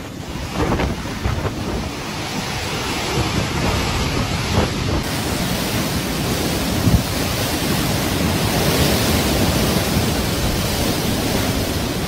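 Gale-force storm wind blowing hard and buffeting the microphone. For the first few seconds it mixes with surf breaking against a harbour pier. About five seconds in it changes suddenly to a steady rush of wind-driven heavy rain.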